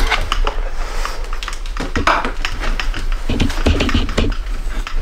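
Close, rapid clicking and knocking of equipment being handled while a light is set up, with a few dull low thumps in the middle.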